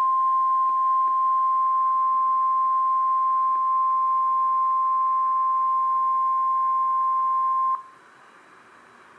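NOAA Weather Radio warning alarm tone, a single steady 1050 Hz tone sounded for the weekly test, held at one pitch and cutting off suddenly about eight seconds in. Faint broadcast hiss follows.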